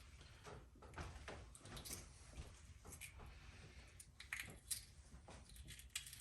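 Faint, scattered crackles and ticks of a hard-boiled goose egg's shell being peeled off by hand, with a few sharper clicks about four to five seconds in.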